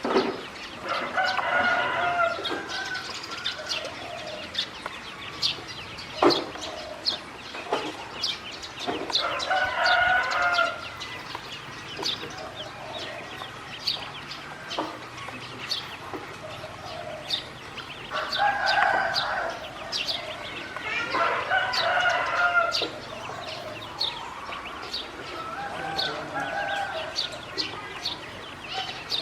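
Roosters crowing about five times, each crow a second or two long, over a continual scatter of short high peeps from ducklings.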